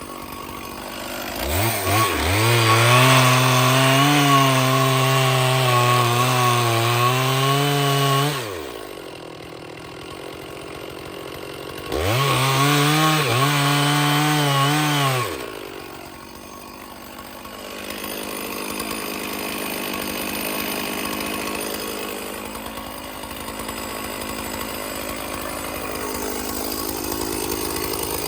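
Stihl chainsaw revved from idle to full throttle and cutting through oak for about seven seconds, its pitch wavering under load, then dropping back to idle. A second, shorter cut of about three seconds follows before the saw settles back to idling.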